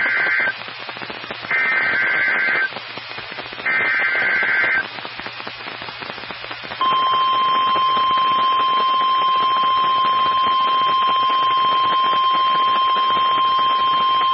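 NOAA Weather Radio Emergency Alert System signal over radio hiss. The first SAME header data burst ends half a second in, and two more digital data bursts of about a second each follow. About 7 s in, the steady 1050 Hz warning alarm tone starts and holds. Header and tone announce a new National Weather Service warning, here a severe thunderstorm warning.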